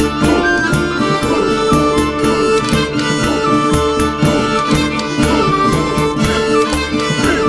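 Background music: held instrumental notes over a steady, regular beat.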